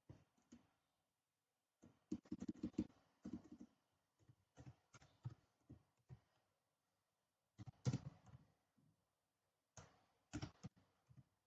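Faint clicks of computer keyboard keys being typed, in short runs of keystrokes with pauses between them.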